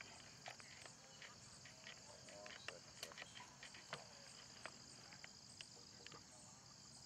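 Faint chorus of field insects, crickets, chirping in a steady high pulsing trill, with scattered light clicks and ticks.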